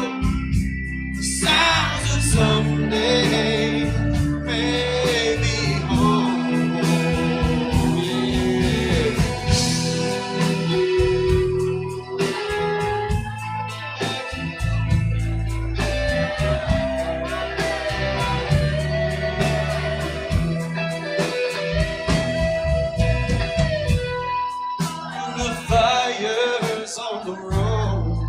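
Live band music: a blues-rock song with guitar to the fore over bass and drums.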